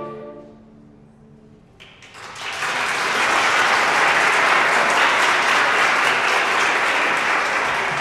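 A youth orchestra's final held chord dies away into the hall's reverberation. About two seconds in, the audience breaks into applause, which builds quickly and stays steady.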